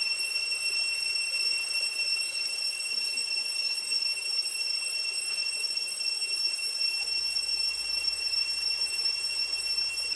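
A steady, high-pitched drone of cicadas over the running water of a shallow stream.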